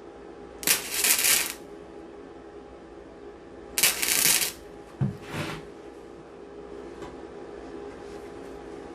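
Three short tack welds crackling on the sheet steel of a trunk-lid patch, about a second in, about four seconds in and a brief one just after, over a steady background hum.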